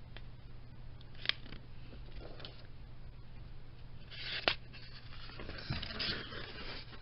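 Glossy magazine pages being handled and turned: paper rustling in two short stretches in the second half, with two sharp clicks, over a faint steady hum.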